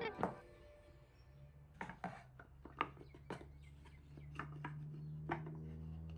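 Quiet, scattered clicks and knocks of bar clamps and a small wooden tray being handled on a wooden workbench, as the clamps come off and the tray is lifted. A faint low hum grows louder about four seconds in.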